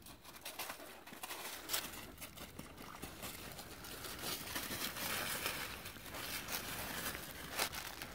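Footsteps crunching through dry fallen leaves: an irregular crackle that grows louder through the stretch.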